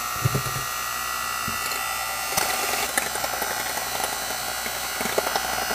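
Electric hand mixer running, its twin wire beaters whisking raw eggs in a ceramic bowl: a steady motor whine with scattered clicks of the beaters against the bowl, growing rougher and more rattly about two and a half seconds in.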